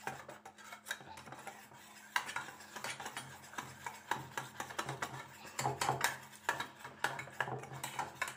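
Wire whisk stirring thick semolina and milk batter in a steel bowl, its wires clicking and scraping against the metal in quick, irregular strokes that slacken briefly about a second in.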